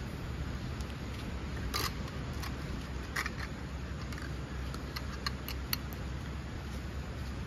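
Small clicks and clinks of a camping lantern being handled and hung on a tent pole: a couple of sharper clicks, then a quick run of light ticks, over a steady low rumble.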